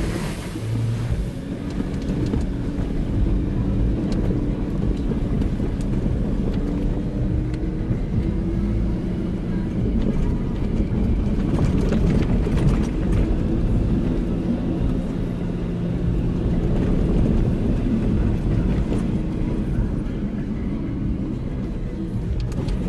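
Jeep Wrangler driving along a dirt trail, heard from inside the cab: steady engine note that rises and falls a little, over tyre and trail rumble, with a few brief knocks from bumps partway through.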